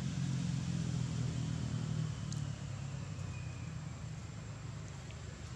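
A vehicle's engine running with a steady low hum that fades away after about two seconds.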